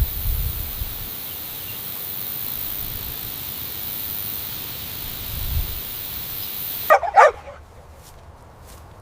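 A steady hiss like rain, then a dog barks twice in quick succession about seven seconds in.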